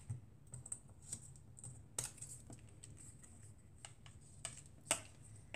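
Faint, irregular light taps and clicks of small paper card pieces being handled and pressed down onto a cutting mat, the sharpest about two and five seconds in.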